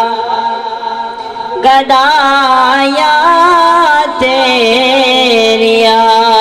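A man singing a Punjabi naat into a microphone in long, wavering held notes, breaking off briefly and starting a new phrase about two seconds in.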